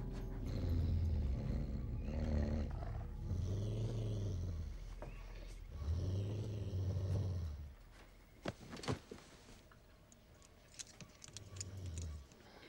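A dog growling, very low and deep, in long drawn-out rumbles through the first eight seconds. Then it goes quieter with a few sharp knocks, and there is a short growl again near the end.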